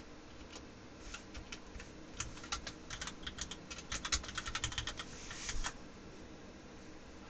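Typing on a computer keyboard: a few scattered keystrokes at first, then a fast run of key clicks from about two seconds in, stopping just before six seconds.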